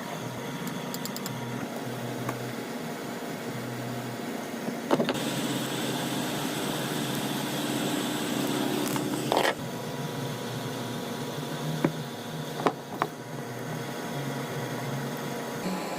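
GMC active speaker hissing, the fault under repair. About five seconds in a click brings on a louder hiss with a low tone beneath it, which cuts off abruptly with another click some four seconds later. A steady fainter hiss and hum runs underneath, with a few sharp clicks near the end.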